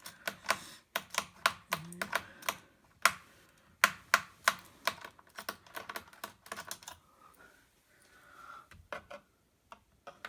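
Quick, irregular runs of sharp clicks and taps as a screwdriver works screws out of the laptop's plastic bottom case. The clicks come thickly at first and thin out in the last few seconds.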